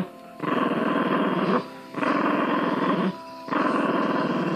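Small dog growling: three long growls of a little over a second each, with short pauses between.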